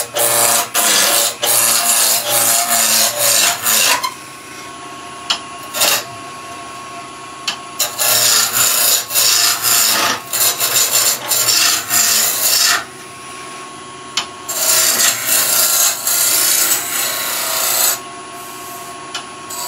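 Roughing gouge cutting a spinning wooden blank on a woodturning lathe running at about 1800–2000 rpm: loud rasping cuts in three long stretches. In the gaps between cuts the lathe runs on with a steady whine.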